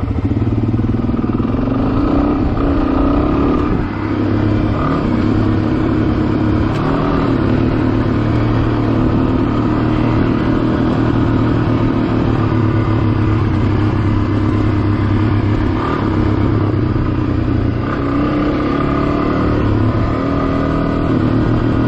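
Dual-sport motorcycle engine running steadily under way on a dirt road, with rushing road and wind noise; the revs rise somewhat near the end.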